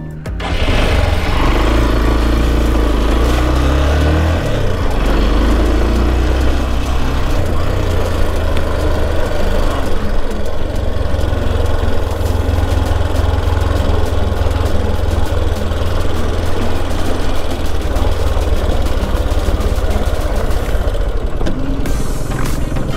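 Motorcycle engine running on the move, its revs climbing over the first few seconds and then holding steady, under a constant rush of riding noise.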